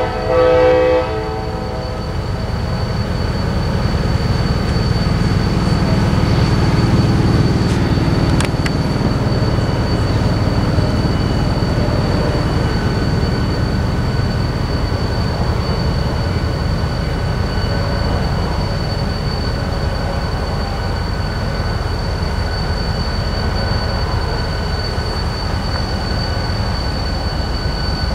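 Diesel locomotive horn sounding a short blast at the start, then the locomotive's diesel engine running with a steady low rumble that swells over the first several seconds.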